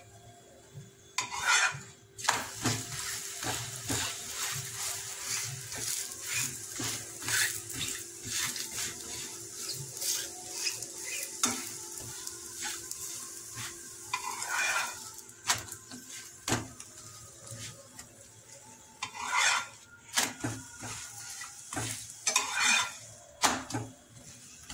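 Paratha frying in a little oil in a non-stick pan, a steady sizzle, while a metal spatula scrapes and taps against the pan as it presses and turns the bread. A few louder scrapes come now and then.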